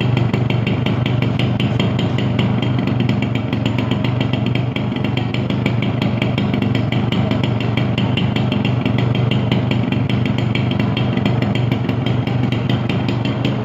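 A Yamaha YB 100's single-cylinder two-stroke engine running steadily at one speed, with a fast, even clatter.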